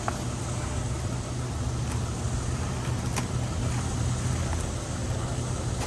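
Steady low rumble of outdoor background noise, with a faint click about three seconds in.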